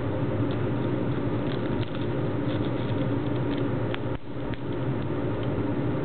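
An African grey parrot's beak cracking and picking at sunflower seeds: small, irregular clicks and crunches over a steady background hum.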